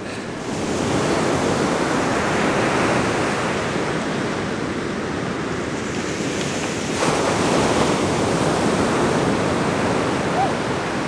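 Ocean surf breaking and washing onto a sandy beach, a steady rush of waves, with wind buffeting the microphone.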